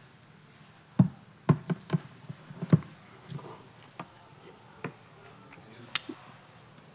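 Microphone handling noise: a run of irregular knocks and bumps, the loudest cluster between about one and three seconds in, with a few more later.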